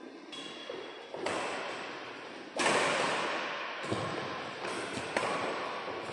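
Badminton rackets striking the shuttlecock in a rally: about six sharp hits, roughly a second apart, each echoing on in a large hall. The hit about two and a half seconds in is the loudest.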